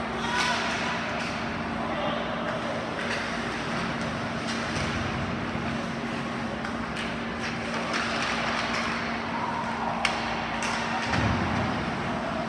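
Ice hockey rink during play: a steady hum under crowd chatter, with scattered sharp clacks of sticks and puck and hissing scrapes of skates on ice, one sharp crack about ten seconds in.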